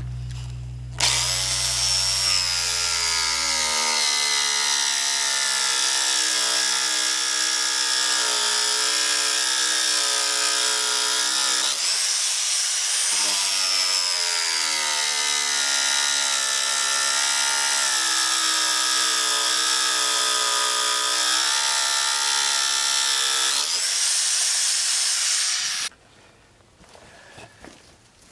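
Corded electric jigsaw cutting a notch into a wooden deck board, its motor running at a steady whine. The whine dips briefly about halfway through, then stops a couple of seconds before the end.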